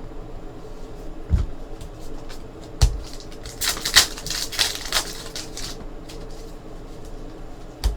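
Trading cards being handled on a table: two soft knocks about a second and a half apart, then a couple of seconds of rustling and sliding as cards and their packaging are moved.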